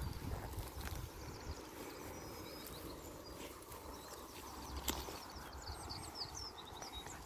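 Outdoor ambience of wind rumbling on the microphone and rustling in rough vegetation, with a small bird twittering in short high phrases in the background. A single sharp click about five seconds in.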